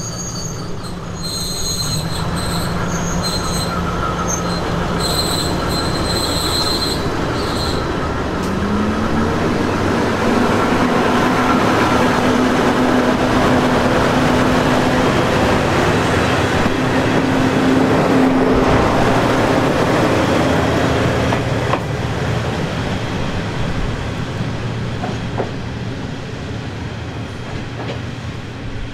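Isumi Railway diesel railcar train (KiHa 28 / KiHa 52, DMH17-series diesel engines) running by. High-pitched squeals come and go over the first eight seconds, the engine note rises in pitch about eight seconds in, and the running noise swells to its loudest in the middle, then fades.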